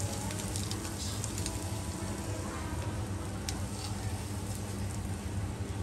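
Takoyaki batter and balls sizzling in hot cast-iron takoyaki pans, a steady frying hiss with scattered small crackles.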